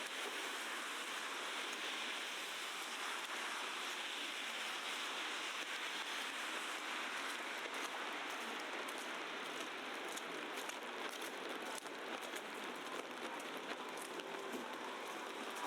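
Steady, even hiss and patter of heavy wet snow falling in a city street, much like rain.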